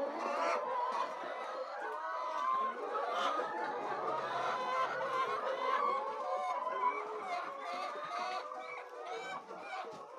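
A flock of laying hens clucking and calling together, many short calls overlapping into a steady chatter.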